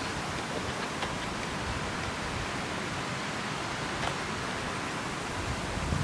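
Steady rushing of a waterfall, an even hiss that holds the same level throughout.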